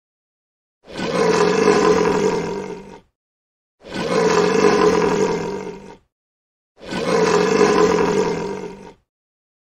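Lion roar sound effect played three times in a row, each roar about two seconds long, with dead silence between them.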